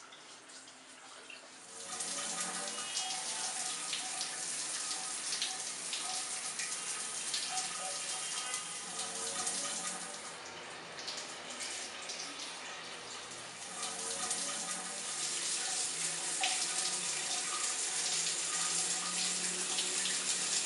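Shower running: a steady hiss of spraying water that starts about two seconds in and softens for a few seconds midway.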